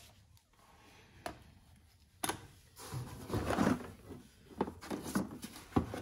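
Handling noise from a cardboard box of tools: a sharp knock about two seconds in, then a second or so of scraping and rustling as a plastic tool case is lifted out against the other tools, and a few light clicks and knocks near the end.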